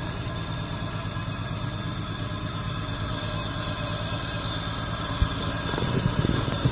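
Nissan Maxima's six-cylinder engine running steadily at idle just after finally starting, with a steady hiss over it and a small knock about five seconds in.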